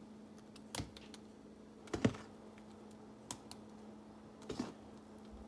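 Spoon stirring and scooping thick idli batter in a bowl: a few scattered clicks and knocks of the spoon against the bowl, the loudest about two seconds in, over a faint steady hum.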